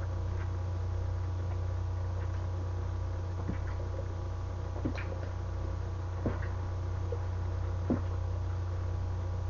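A man gulping wine straight from a small bottle: a few soft swallows roughly every second and a half, over a steady low hum.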